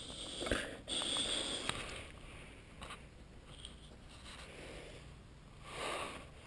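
Snoring: a rasping, noisy breath starting about half a second in and lasting about a second, then a softer breath near the end.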